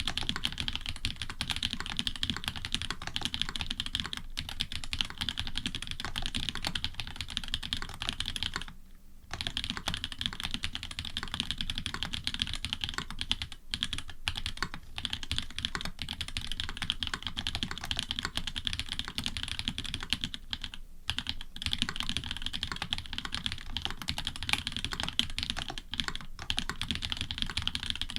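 Steady, fast typing on an Orion v2.5 custom mechanical keyboard with frankenswitches (Cherry bottom housings with NovelKeys Cream tops and stems), an FR4 plate with plate foam and GMK keycaps: a dense run of keystrokes, with a short pause about nine seconds in.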